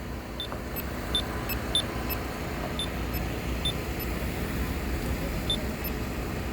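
Steady rumble of road traffic at an intersection, with a scatter of short, high-pitched beeps at uneven intervals.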